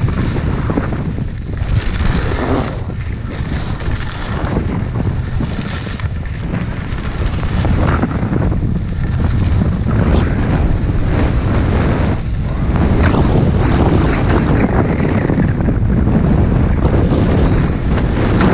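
Strong wind buffeting the microphone as a skier descends at speed, a loud low rumble mixed with the hiss and scrape of skis on snow that swells and fades with the turns.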